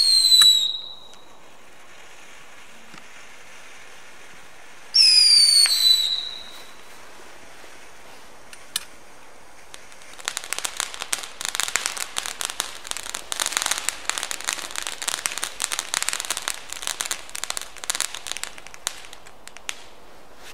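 A 1998 Moon Scape firework fountain burning. It gives two short whistles that fall in pitch, about five seconds apart, then dense crackling from about ten seconds in until near the end.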